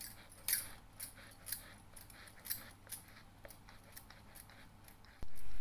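Rolling pin being pushed back and forth over semolina-and-potato dough on a rolling board: faint, short rubbing strokes, about two a second. A steady low hum sets in near the end.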